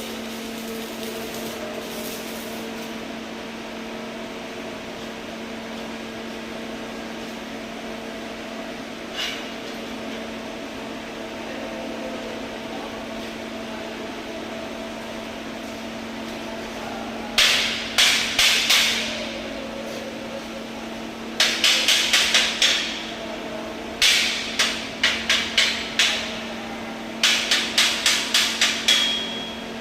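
A steady electrical hum. From a little past halfway it is joined by four quick runs of hammer blows on metal, each run several strikes long, each strike ringing briefly.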